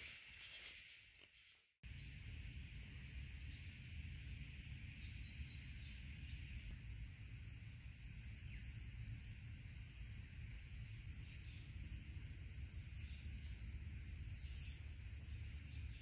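Steady high-pitched drone of insects in summer woodland, starting abruptly about two seconds in after a short faint stretch fades to silence, with a low rumble beneath it.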